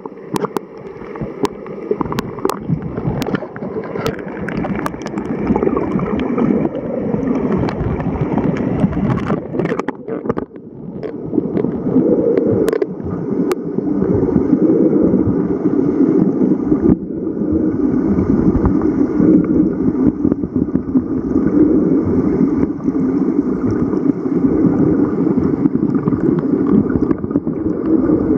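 Steady, muffled underwater rushing and gurgling of pool water around a submerged camera, with scattered sharp clicks in the first few seconds and a brief dip in loudness about ten seconds in.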